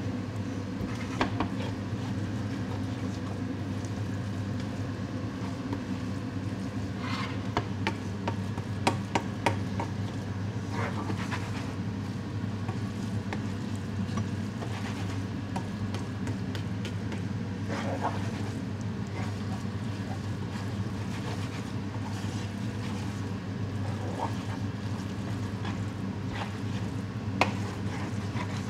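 A cooking utensil clicking and scraping against a pan now and then as sloppy joe filling is stirred, over a steady low hum.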